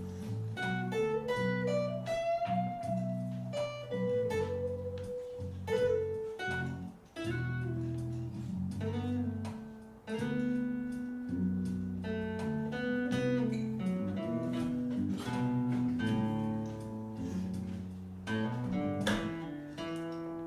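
Acoustic guitar playing an instrumental passage: strummed chords underneath a held melody line whose notes bend slowly in pitch.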